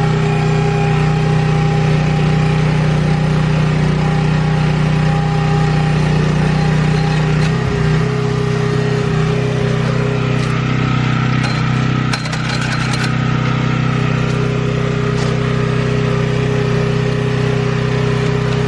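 Engine of a powered post-hole auger running steadily as it bores into the ground, with a slight drop in level about twelve seconds in.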